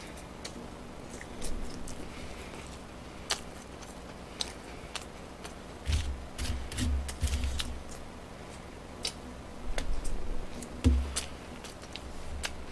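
A man eating close to the microphone: chewing, with many scattered sharp clicks and a few short bursts of low thumps about six and eleven seconds in.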